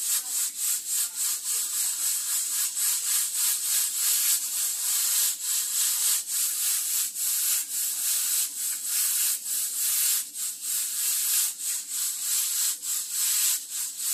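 Stainless steel pressure cooker venting steam through its lid valve: a loud, steady hiss that wavers rapidly in level, the sign that the cooker is up to pressure.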